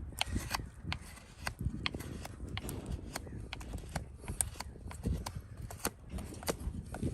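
Irregular sharp clicks and knocks, several a second, from farrier work on a horse's hoof.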